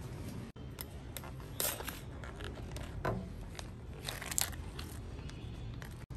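A few short scraping and crunching noises from sea snails being cleaned and cut: one about a second and a half in, one around three seconds, and a longer scrape a little after four seconds.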